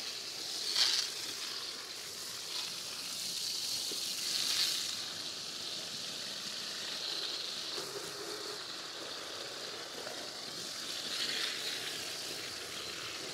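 Water spraying from a garden hose nozzle onto dry grain feed in a plastic stock tank, wetting it down to ferment: a steady hiss that swells briefly a few times.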